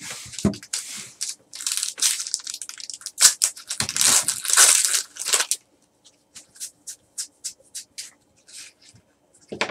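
Foil wrapper of a trading-card pack crinkling and tearing as it is ripped open by hand, for about five seconds. It is followed by a run of light separate ticks as the cards inside are thumbed through.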